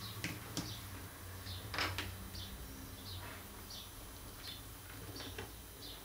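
Light handling noise from a tablet being moved on a wooden desk: a few sharp clicks and taps, the loudest a knock about two seconds in. Behind it, a bird chirps with short high notes about once a second.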